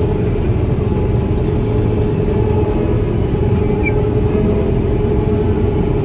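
Combine harvester running while cutting wheat, heard from inside the cab: a steady, loud machine drone with a constant hum over a low rumble.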